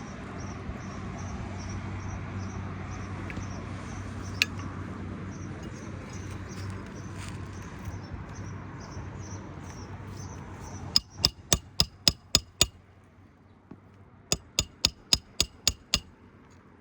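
Hammer blows in two quick runs of about seven strikes each, about four a second, with a short ringing after each blow, coming in the last six seconds. Before them, a steady low hum and a faint, regular insect chirping.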